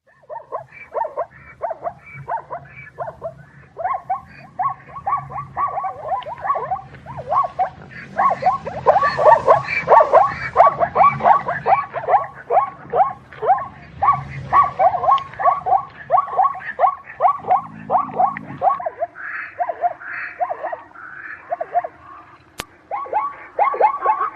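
Zebra barking: long runs of short, rapid yelping calls, about three to four a second, broken by brief pauses.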